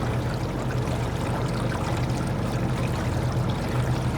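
Small two-stroke outboard motor running at a steady speed, pushing a small boat along, with water rushing and splashing against the hull.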